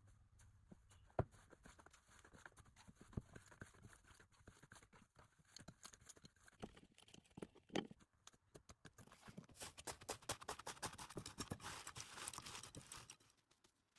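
Slime being squished and poked by hand: faint sticky clicks and pops, which become a dense run of crackling about nine seconds in and stop shortly before the end.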